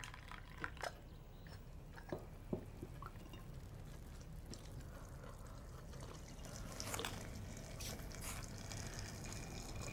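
Tea pouring into a cup from a pot, among a few light clinks of cups and crockery.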